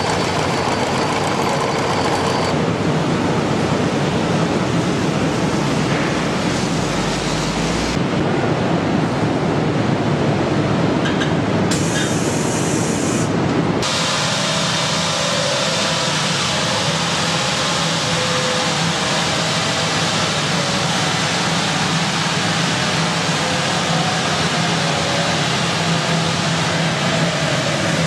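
Loud, steady assembly-line machinery noise that changes abruptly a few times. In the second half it becomes a steady hum from a Fiat 500 running on a roller test stand.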